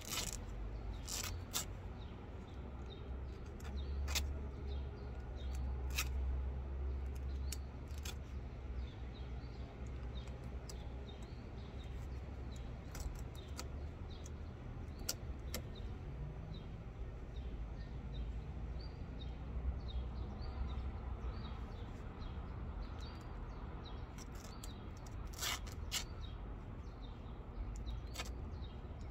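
Old chair upholstery being stripped away: scattered sharp snips, clicks and tearing as fabric and stuffing are cut and pulled from the frame, over a low steady rumble. Small birds chirp repeatedly in the background.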